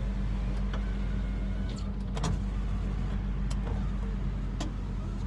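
Power window motor of a 1991 Honda Prelude Si running as a window is operated, with the engine idling underneath. A few sharp clicks come from the switch and mechanism.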